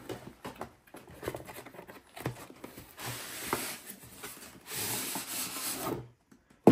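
White styrofoam inner box being slid out of a cardboard Lionel box: foam rubbing and scraping against cardboard in two longer stretches, after a few light knocks as the box is handled.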